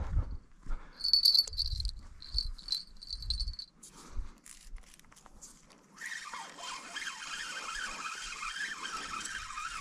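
A fishing reel being wound in short rattling spells as a hooked crucian carp is reeled in. From about six seconds in there is a steady hissing rush.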